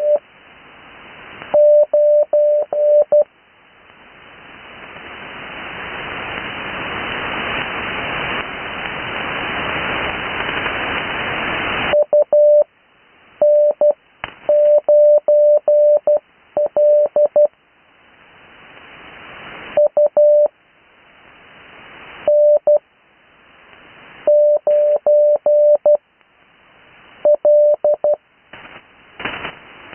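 Morse code (CW) heard off the air through an 80 m receiver: a single steady beep keyed into dots and dashes, sent as short groups of characters with long gaps between them. In the gaps, band hiss swells up after each group and fills a long stretch about 4 to 12 seconds in.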